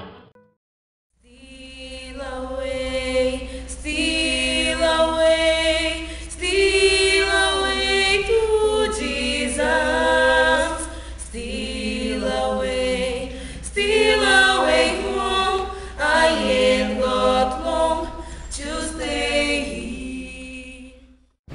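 Unaccompanied choral singing: several voices singing together in harmony, a cappella, starting after about a second of silence and fading out near the end. A steady low hum runs underneath.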